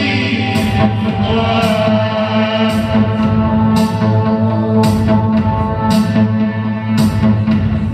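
Live band music: sustained guitar and bass chords, with a sharp hit about once a second.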